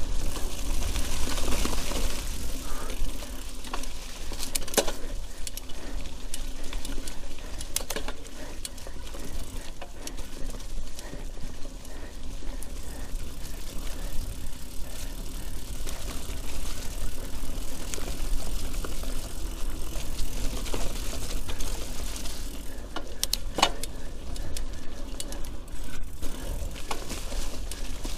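Mountain bike ridden over a wet, rooty forest trail: tyre noise, rattles from the bike and occasional sharp knocks over roots, with wind rumbling on the action camera's microphone.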